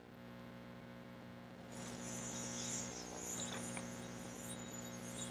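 Low, steady electrical mains hum, with a faint high hiss and a few soft ticks joining about two seconds in.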